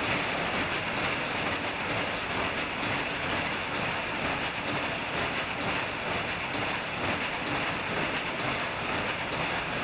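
Many mechanical weaving looms running at once in a weaving shed, a dense, steady machine din.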